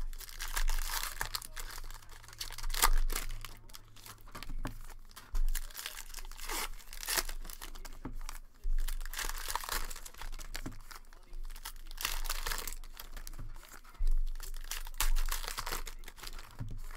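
Sports-card pack wrappers being torn open and crinkled in the hands, in a run of irregular rustles and rips, with cards handled between them.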